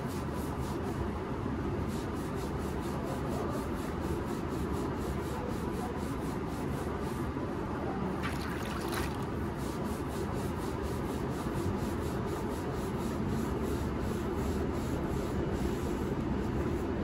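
A wet sponge is rubbed in repeated strokes along an unfired clay casting, smoothing its surface. About eight seconds in the sponge is dunked and rinsed in a bucket of muddy water. It all sits over a steady low background hum.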